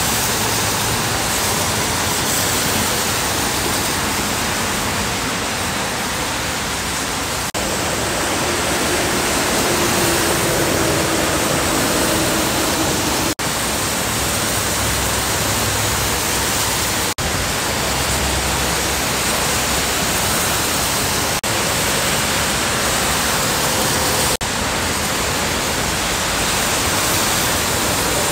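Steady hiss of heavy rain and tyres spraying on a wet freeway, with the low engine sound of passing trucks swelling now and then. The sound breaks off briefly a few times where clips are joined.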